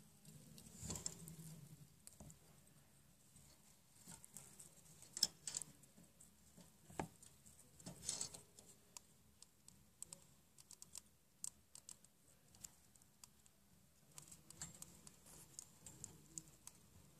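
A pet mouse moving about its cage: faint, irregular small clicks and taps, with a few sharper ticks about five, seven and eight seconds in.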